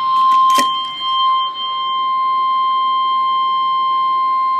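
NOAA Weather Radio's 1050 Hz warning alarm tone, a single steady high beep held without a break, which signals that a watch or warning broadcast follows. There is a brief click about half a second in.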